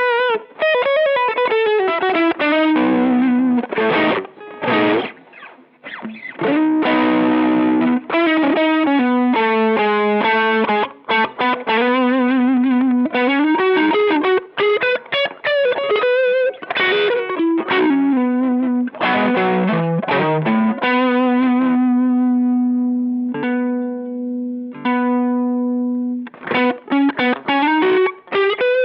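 Electric guitar played through a Boss SD-1 Super Overdrive pedal, a mid-forward overdrive tone. It plays a single-note lead line with string bends and vibrato, then holds one long note for several seconds before the phrase starts again near the end.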